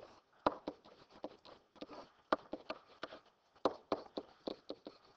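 Pen or stylus tapping and scratching on a digital writing surface while handwriting: a string of faint, irregular clicks, a few a second.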